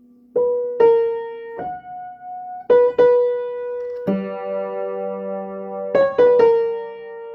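Piano played slowly as single notes at uneven intervals, with a low chord about four seconds in and a quick cluster of notes near six seconds: a learner's halting practice attempt at a song.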